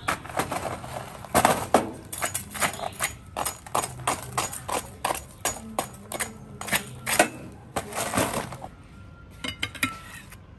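Metal spatula scraping and knocking against a stainless steel tray as it breaks through a crust of baked coarse salt around grilled eel, in quick irregular clicks and scrapes. The clatter dies down near the end.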